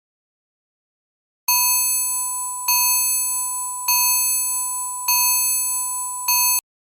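Samsung Anycall SCH-V330 mobile phone playing a built-in bell-like electronic tone, struck about every 1.2 seconds, five times, each strike fading slightly before the next; the fifth is cut off short.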